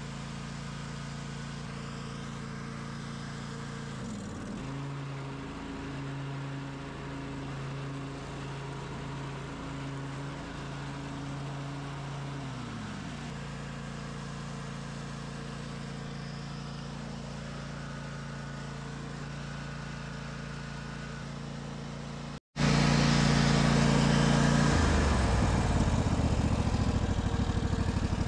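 Harbor Freight Predator 708cc V-twin engine on a Craftsman riding mower, running after being started on the tractor's key switch. Its speed steps up about four seconds in and settles back down around thirteen seconds. After a brief break it is heard louder and closer, then drops to a slower, pulsing idle near the end.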